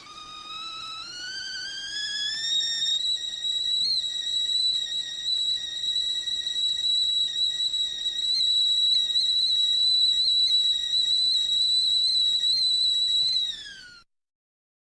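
Stovetop kettle whistling at the boil. The whistle rises in pitch over the first few seconds, settles into a steady high note, then dips and cuts off suddenly near the end.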